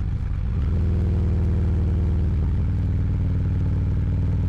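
Harley-Davidson touring motorcycle's V-twin engine running steadily while riding along the road, with a slight shift in its note about two and a half seconds in.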